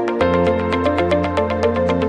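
Electronic background music with a fast, even pulsing beat and sustained synthesizer chords over a held bass note.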